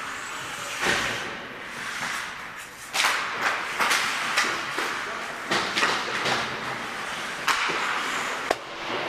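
Ice hockey play: skate blades scraping and carving the ice, with sharp clacks of sticks and puck several times, the first loud one about three seconds in and a sharp one near the end.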